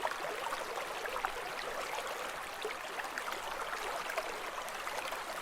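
Running water flowing steadily: an even rushing with many small splashes and bubbles.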